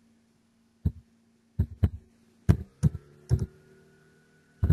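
Six separate keystrokes on a computer keyboard, spaced unevenly over about three seconds, over a faint steady hum.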